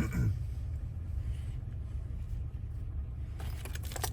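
Steady low hum in the background, with a few small, light clicks near the end as small lock parts are handled.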